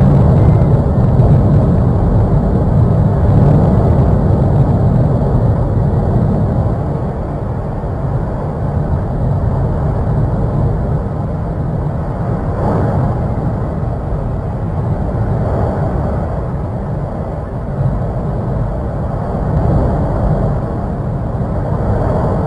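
Deep, steady rumbling roar with no distinct tones, heaviest in the bass, easing a little after about six seconds.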